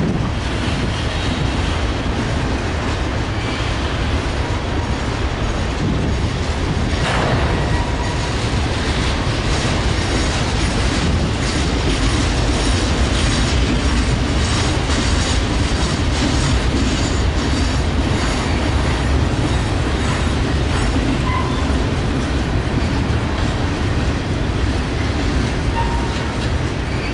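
Train cars rolling past steadily, wheels clacking over the rail joints, with a few brief, faint wheel squeals.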